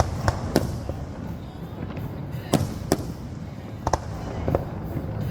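Fireworks shells bursting: about six sharp bangs at irregular intervals, some in quick pairs, over a steady low background.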